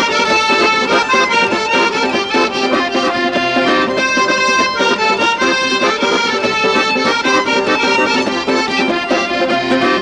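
Instrumental folk-style music: a quick tune of held notes and chords over a steady rhythm, with no voice.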